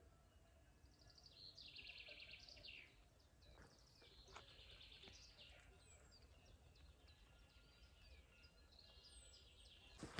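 Songbirds singing faintly: a quick run of repeated trilled notes about a second in, then scattered chirps and short phrases, over a faint low rumble.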